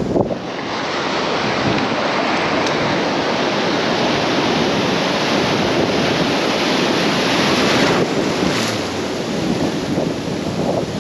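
Ocean surf breaking and washing in foam around the wader, close to the microphone. The rushing noise builds over the first second or two, then stays steady and loud.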